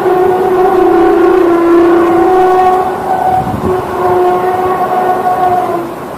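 Loud, drawn-out horn-like drone: several tones held together and wavering, easing off for a moment about halfway and then coming back. It is one of the unexplained 'strange sky sounds' that residents reported hearing outdoors.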